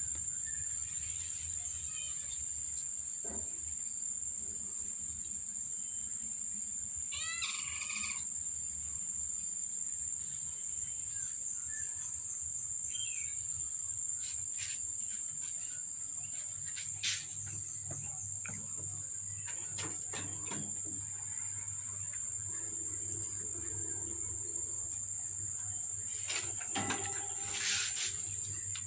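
Steady high-pitched drone of insects, with a short warbling bird call about seven seconds in and a few faint clicks later on.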